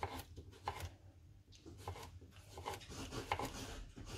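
Paring knife slicing a small Turkish cucumber into thin rounds on a cutting board: a quick, uneven run of soft cuts, each stroke tapping the board.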